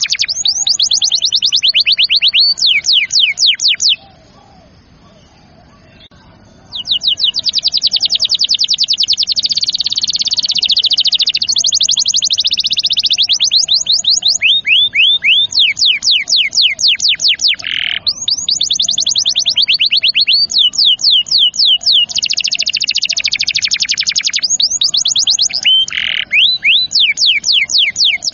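Domestic canary in full song, singing long rolls of fast repeated trilled notes in rapid phrases. The song breaks for about three seconds around four seconds in.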